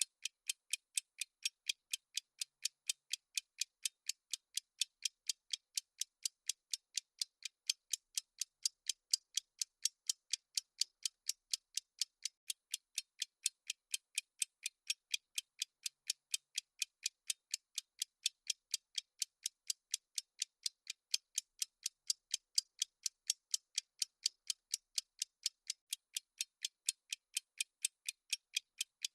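Countdown timer's clock-ticking sound effect: sharp, thin ticks at an even pace of several a second, with no music under it.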